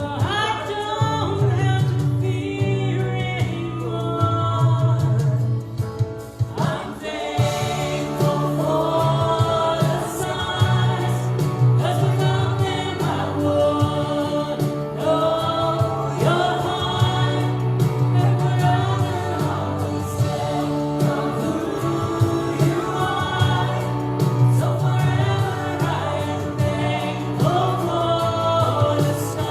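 Contemporary worship song: voices singing a melody over a band with a steady bass line.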